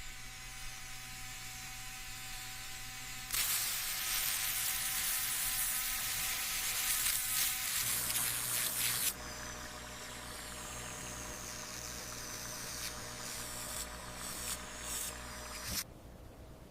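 A hissing spray, loud and steady from about three seconds in until about nine seconds, over a faint steady hum; a few shorter hisses come and go later, and the sound drops off just before the end.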